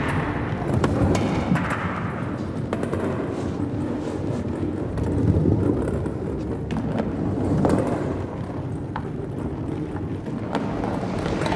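Balls rolling along the metal rails of a large ball run: a steady rolling rumble with scattered clicks and knocks as they run over joints and through tunnels.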